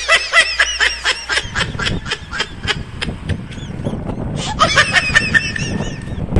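Quick, pulsing laughter in short rapid bursts, returning briefly near the end. About a second and a half in, a low rumble of wind and road noise from a moving bicycle comes in beneath it.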